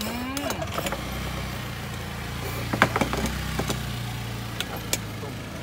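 An engine idling steadily at a low pitch. A few sharp metal clinks come about halfway through and again near the end as the aluminium moka pot is handled.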